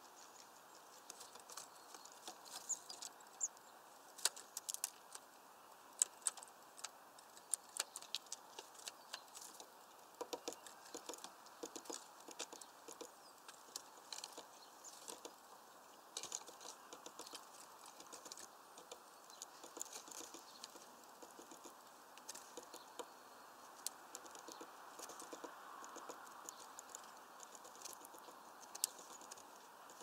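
Great spotted woodpecker pecking at a mesh bag of suet on a bird feeder: irregular sharp taps and clicks, some in quick runs, over a faint steady background hiss.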